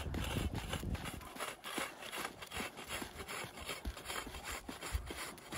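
Rope skipping on packed snow: the jump rope and the jumper's feet hit the snow in a quick, even rhythm of light slaps.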